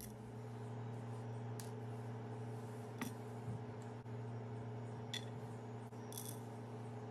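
A steady low hum with a few faint, sharp clicks and clinks scattered through it.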